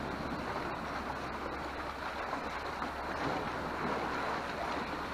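Sea waves washing against rocks, with wind: a steady rushing noise.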